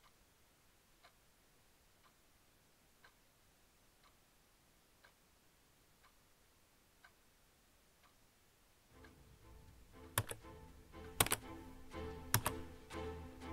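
A clock ticking faintly about once a second in a quiet room. About nine seconds in, music begins, and three or four sharp computer-keyboard key presses follow, roughly a second apart.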